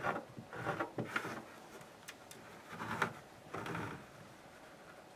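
Fabric rustling and a small hand tool rubbing over patchwork pieces as sewn seams are spread open and pressed flat by hand, in a few short scraping bursts.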